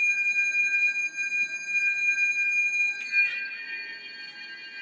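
Steady high ringing tones from a bell-like instrument, several pitches sounding together. About three seconds in a new note is struck, and the ringing then eases off slightly.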